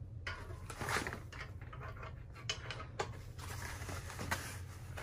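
Handling noise: the plastic-wrapped foam legs and plastic centre bracket of an animatronic rustling and clicking irregularly as a leg is worked into the bracket, over a steady low hum.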